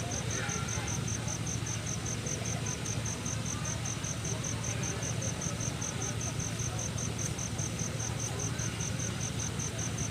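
A cricket chirping in an even, fast high-pitched pulse, about five chirps a second, over a low steady hum of the room and sound system.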